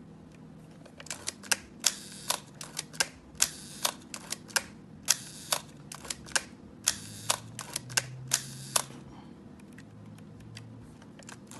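Canon 7 rangefinder's cloth focal-plane shutter firing over and over, with the film advance lever ratcheted between releases: a run of sharp clicks and short rasps, from about a second in until about nine seconds. The shutter is being tried at different speeds and works smoothly.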